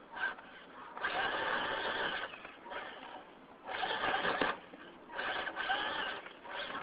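Electric motor and gearbox of a Losi Night Crawler RC rock crawler whining in short throttle bursts, about five in all with pauses between, as the truck crawls up a tire.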